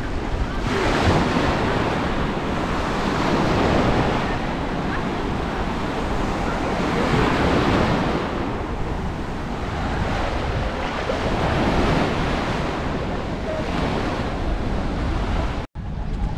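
Small sea waves breaking and washing onto the shore, swelling in repeated surges every few seconds, with wind buffeting the microphone. The sound drops out for an instant near the end.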